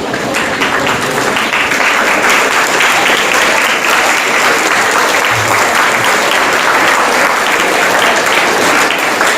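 Large crowd of students applauding: many hands clapping in a steady, dense patter.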